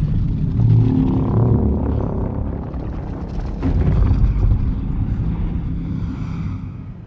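A low, rumbling Godzilla sound effect from the 2014 MonsterVerse film, swelling about a second in and again around four seconds in, then fading out.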